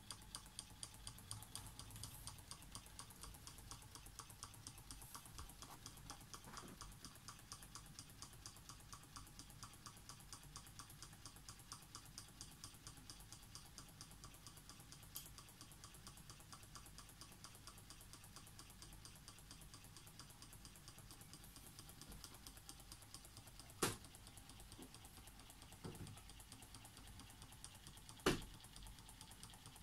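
Indian-made copy of a Wiggers Stirling hot-air engine running, its linkages and pistons giving a faint, steady, rapid clicking. Two sharper knocks stand out in the last few seconds.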